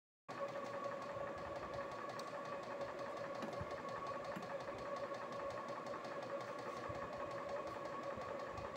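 Stirling engine generator set (GDS-150) running with a steady mechanical hum and an even whine, cutting in just after the start.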